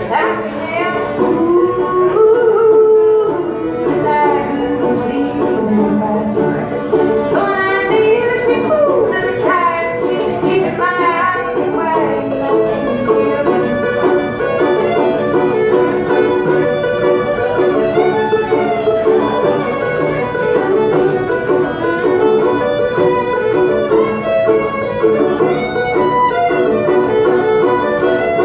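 Fiddle and banjo playing an instrumental break together, the fiddle carrying the melody with sliding notes over the banjo's picked accompaniment.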